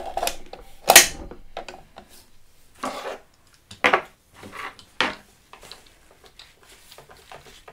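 Handling an airsoft gun and its parts: a run of hard clicks, knocks and rubbing, with the loudest knock about a second in and lighter ticks towards the end.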